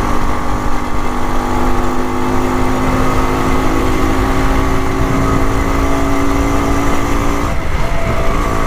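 Rajdoot 175's single-cylinder two-stroke engine running at a steady cruising speed, with wind rumbling on the microphone. The engine note drops away briefly about seven and a half seconds in, then comes back.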